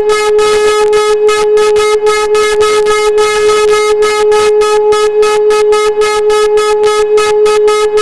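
Old Hörmann F71 civil defence siren sounding a loud, steady, single pitch that neither rises nor falls. Its upper tones pulse rapidly, about five times a second.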